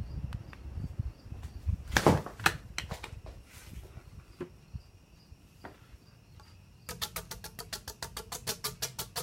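A few scattered clicks and knocks, then about seven seconds in, music starts with a fast, steady percussive beat.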